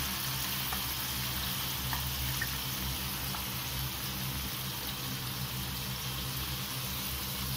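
Porcini mushrooms frying in oil in a frying pan, a steady sizzle as cream is poured in over them, with a few faint pops.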